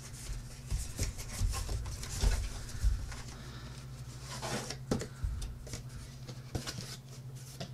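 Corrugated cardboard shipping box handled by hand as it is unpacked: flaps rubbing and folding, with scattered soft knocks and thumps, the heaviest in the first three seconds.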